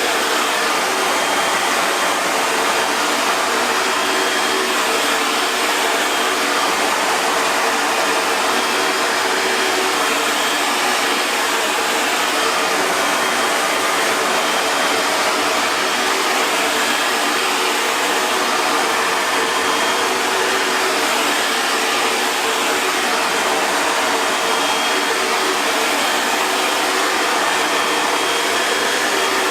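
Hair dryer running continuously on a steady setting: an even rushing whoosh of air with a faint motor hum beneath it.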